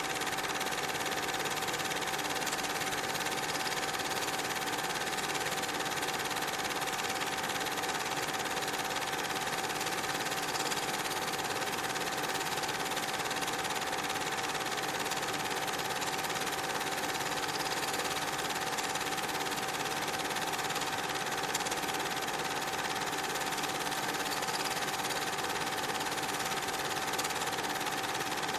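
Steady mechanical whirr with a constant hum tone and hiss, unchanging throughout.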